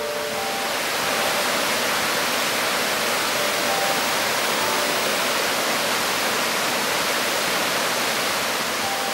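Creek water rushing over rocks in whitewater rapids: a loud, steady rush that cuts in suddenly at the start.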